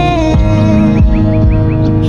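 Instrumental stretch of a pop song: held chords over a steady beat, with a quick run of short rising chirp-like notes in the second half.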